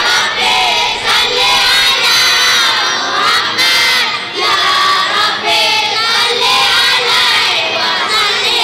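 A large group of children singing a sholawat refrain together in response, many high voices overlapping loudly and a little out of step.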